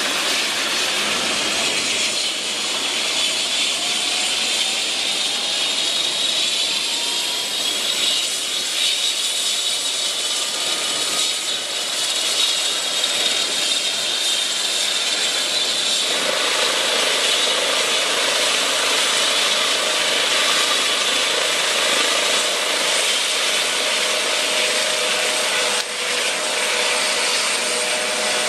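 Airbus H135 (EC135 T3H) helicopter running on the ground with its main rotor turning: the twin Turbomeca turboshaft engines give a steady high turbine whine over the hum of the rotors and the Fenestron ducted tail rotor. Lower tones drift slowly in pitch, and a new lower tone comes in about halfway through.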